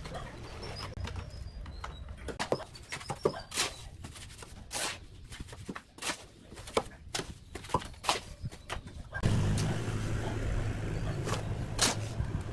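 A straw broom sweeping a concrete floor, then a steel shovel scraping and chopping through wet cement mortar on concrete in repeated sharp, irregular strokes. A steady low hum joins about nine seconds in.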